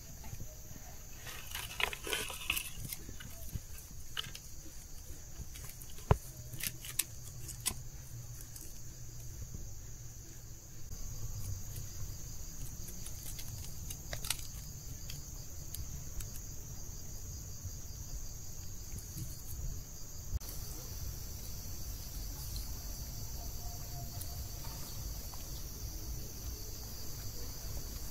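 Steady high-pitched chirring of insects, growing louder about two-thirds of the way through, with scattered sharp clicks and knocks, most of them in the first several seconds.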